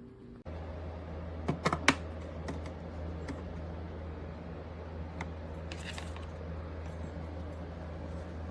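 A few sharp plastic clicks and snaps from handling a food processor that will not start, over a steady low hum that sets in about half a second in.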